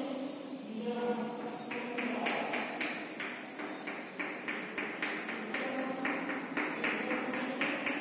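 Chalk on a blackboard: short, quick tapping strokes, about three a second, starting about two seconds in, as short hatch lines are drawn.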